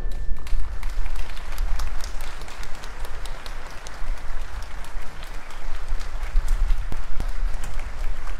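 Audience applauding: many scattered hand claps over an even hiss of clapping, with a low rumble underneath.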